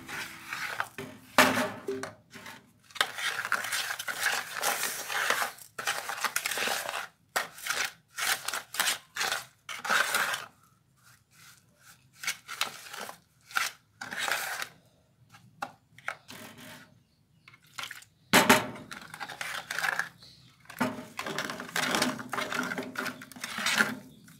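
Wooden spoon stirring and scraping a powdery mix in an aluminium pot, in repeated gritty strokes, with a quieter spell in the middle and one sharp knock against the pot about three-quarters of the way through.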